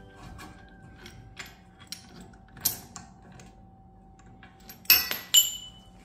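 Steel parts of a brake caliper piston wind-back tool being handled against a rear disc brake caliper, giving light metallic clicks and knocks. About five seconds in come two sharp, ringing metal clinks.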